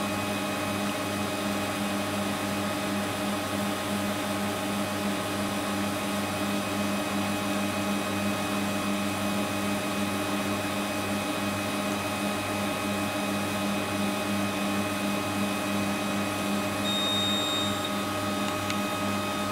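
Small peristaltic tubing pump turning slowly as it meters liquid onto a balance: a steady motor hum with a slight regular pulse. A short high beep sounds near the end.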